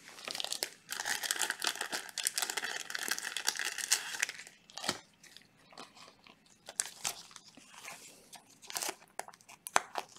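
Gloved hands handling a trading card and plastic card holders: a dense stretch of plastic crinkling and rustling lasting about three and a half seconds, then scattered light taps and clicks as the card is slid into a sleeve and top loader.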